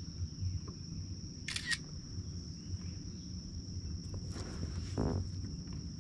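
Camera shutter sound, a quick double click about a second and a half in, as the measured bass is photographed on the board, over a steady high-pitched chorus of crickets and a low rumble. A short scrape comes about five seconds in.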